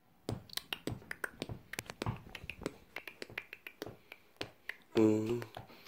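An irregular run of short, sharp clicks, three or four a second. About a second from the end comes a man's short hummed note, then a brief pause.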